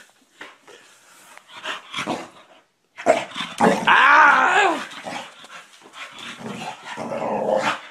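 Boxer dog vocalising in play: a loud, drawn-out call that rises and falls in pitch about three seconds in, followed by lower, quieter grumbling calls. Short knocks and scuffles come before it.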